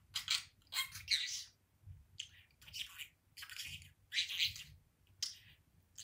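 Pet budgerigar chattering and talking in a run of short, high-pitched phrases, about eight in six seconds.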